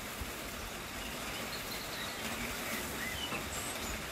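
Steady outdoor background hiss with a few faint, brief bird chirps.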